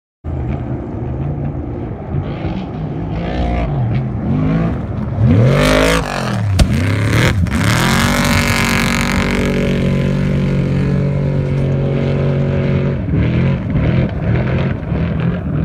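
Trophy truck engine revving hard at full throttle as it passes, its pitch swooping up and down, with a sharp bang about six and a half seconds in. After that it holds steady high revs.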